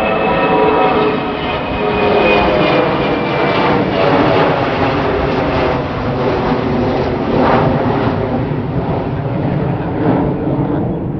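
Jet airliner engines running loud as the aircraft passes close by: a steady roar with several whining fan tones that slowly fall in pitch.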